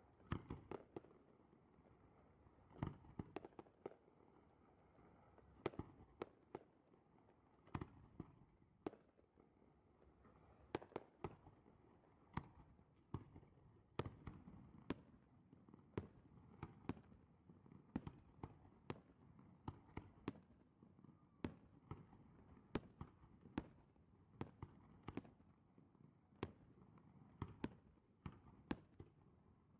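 Aerial firework shells bursting in a display: dozens of sharp bangs at irregular intervals, often one to three a second.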